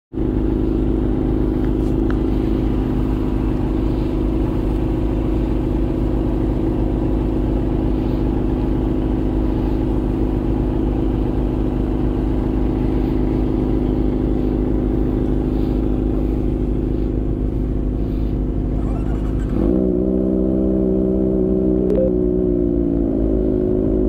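Motorcycle engine running steadily under way, over low road and wind rumble. Its note changes about twenty seconds in, then sinks slightly.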